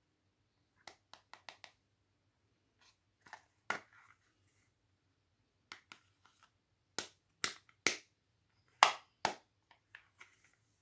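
Sharp plastic clicks and taps from a pink plastic heart-shaped toy compact mirror being handled, its lid opened and closed. A quick run of small clicks about a second in, then louder single clicks spaced out, the loudest two-thirds of the way through.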